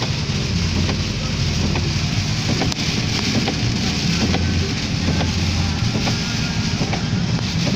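Heavy rain pouring down steadily: a dense, even hiss with a low rumble underneath.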